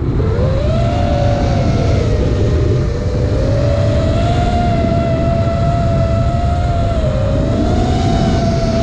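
Motors and propellers of an iFlight Nazgul5 V2 5-inch 6S FPV quadcopter whining in flight, the pitch dropping and rising with the throttle. Heavy wind rumble on the onboard microphone runs under it; the wind was strong enough that the quad struggled to gain speed at about 90% throttle.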